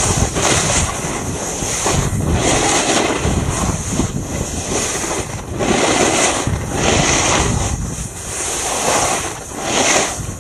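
Wind rushing over the microphone of a camera riding down a snow slope, mixed with the hiss of edges scraping across the snow; the noise swells and fades every second or so as the rider turns.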